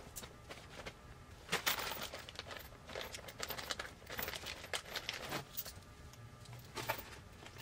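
Faint rustling of a paper instruction sheet and a few scattered light clicks and taps from handling small bolt-and-nut hardware.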